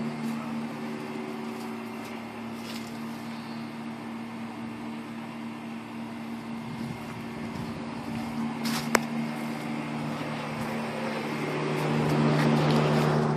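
2006 Pontiac GTO's 6.0-litre LS2 V8 idling steadily, the engine the owner posts to show a lifter tap. A single sharp click about nine seconds in, and the engine sound grows louder near the end.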